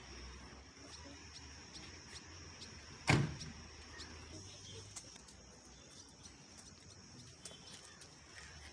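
Faint steady hum with a thin high whine, scattered light clicks, and one sharp knock about three seconds in.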